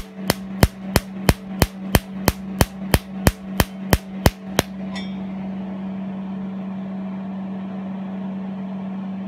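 Q-switched Nd:YAG laser firing pulses onto printed paper: a rapid series of sharp snaps, about three a second, fifteen in all, stopping about halfway through. A steady low hum runs underneath throughout.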